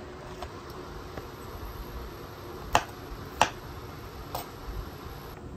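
Kitchen knife cutting broccoli florets on a cutting board, with three sharp clicks of the blade meeting the board less than a second apart near the middle.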